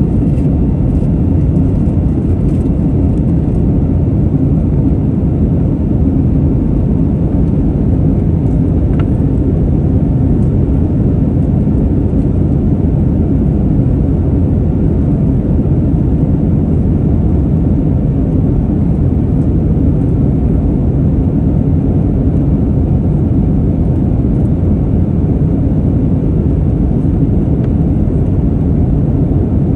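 Steady cabin noise of an Airbus A321neo climbing out after takeoff: its Pratt & Whitney geared turbofan engines and the rush of air over the fuselage, heard from inside the cabin by a window over the wing. A low, even roar that holds level throughout.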